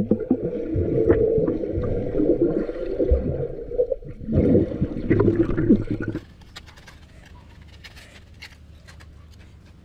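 Muffled water gurgling and sloshing, cutting off abruptly about six seconds in to a much quieter background with faint scattered clicks.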